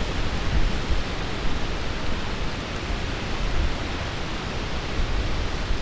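Wind buffeting the camera's microphone: a steady rushing hiss with uneven low rumbling gusts.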